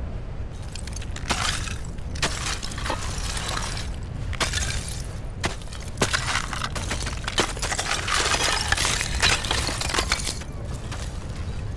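River ice being chopped and broken out into chunks: irregular sharp cracks and knocks, with crunching and clinking of ice pieces.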